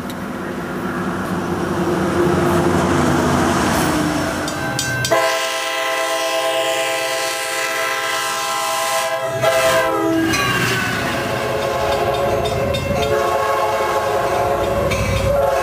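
Passenger trains passing, heard through several cut-together clips: a noisy rumble first, then a diesel locomotive's air horn sounding a long multi-note chord about five seconds in that drops in pitch as the train goes by, and another horn blast near the end.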